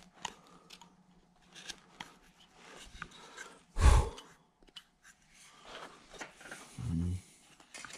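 Carving knife slicing and paring wood in short, scattered strokes, with one heavier dull thump a little under four seconds in.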